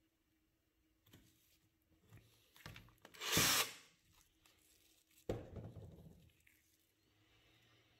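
Handling noise on a wooden workbench: a short rough rubbing rustle about three seconds in, then a knock followed by a brief scrape about five seconds in.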